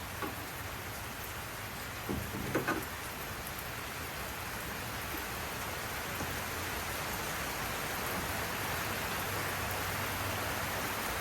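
A steady, rain-like hiss that grows slightly louder, with a few light knocks about two to three seconds in.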